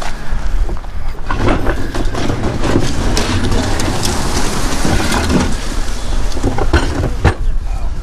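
Gusty wind buffeting the microphone: a constant low rumble with stronger gusts, and indistinct voices partly buried under it.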